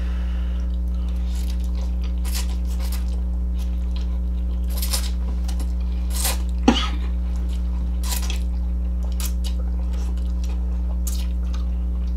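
Two people slurping and chewing noodles, with forks tapping and scraping against plastic bowls, in short irregular bursts. A steady low electrical hum runs underneath, and one louder short sound comes about two-thirds of the way through.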